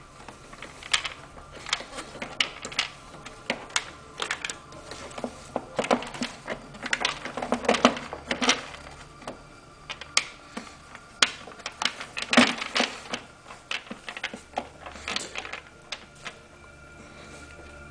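Plastic airbox lid being set back over the air filter and shifted into place, giving irregular clicks and knocks.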